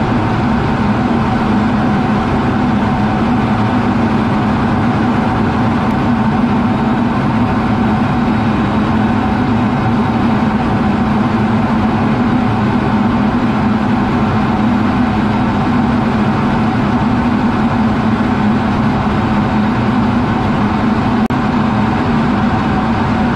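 Steady, loud cockpit noise inside an F-16 fighter in flight: the jet engine and the air rushing over the canopy blend into one constant drone with a strong low hum.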